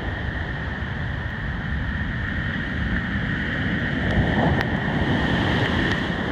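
Strong storm wind buffeting the microphone over the rumble of heavy surf breaking on the beach, swelling louder about two-thirds of the way through.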